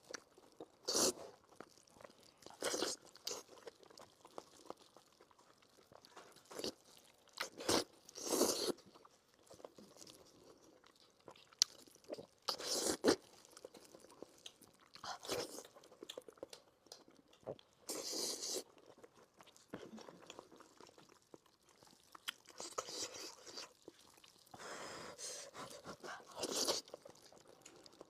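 A person eating braised pork belly in spicy sauce close to the microphone: irregular bites and chewing sounds in short bursts every second or few seconds, with quieter gaps between.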